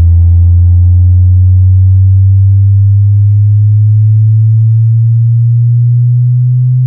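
Pioneer TS-WX210A active subwoofer playing a low-frequency sine sweep test tone: a loud, deep hum that rises slowly and steadily in pitch, from about 85 Hz to about 130 Hz.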